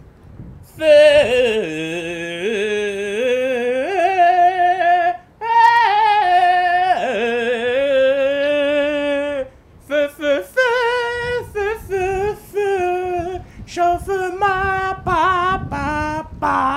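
A single voice singing unaccompanied. Long held notes with vibrato come first, and from about ten seconds in the melody breaks into shorter, choppier notes.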